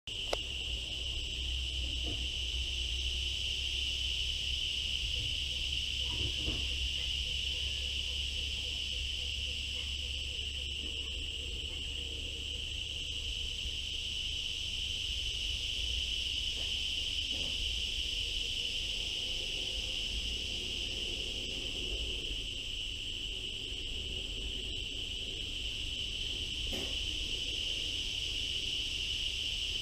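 Steady insect chorus, a continuous high-pitched trill that never breaks, over a low rumble that eases off about halfway through.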